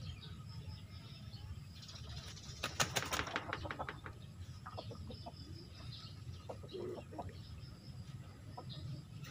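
Fighting rooster hung in a training swing, flapping its wings in a quick flurry of beats about two and a half to three seconds in, with a few lighter flaps later.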